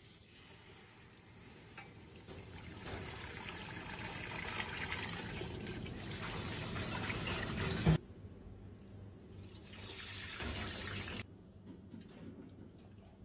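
Liquid poured from a stainless steel pan into a steel saucepan, splashing and filling, with a wire whisk stirring it through. The sound builds over several seconds and stops abruptly about eight seconds in, with a shorter burst of the same a couple of seconds later.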